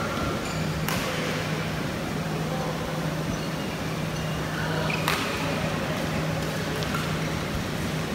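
Indoor sports hall ambience between badminton rallies: a steady low hum with faint distant voices, and two sharp knocks about four seconds apart.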